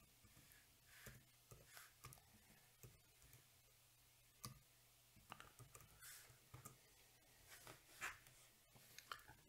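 Faint, irregular key clicks of typing on a computer keyboard.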